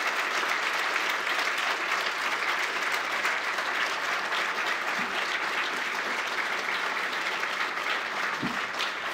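Large seated audience applauding steadily, many hands clapping, fading a little near the end.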